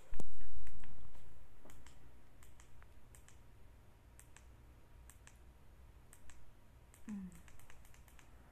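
Scattered light clicks, a few a second at times, after a low rumble of handling noise that fades over the first second and a half.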